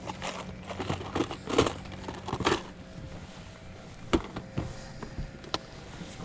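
Scattered clicks, knocks and rustling of handling noise, with a faint low steady hum.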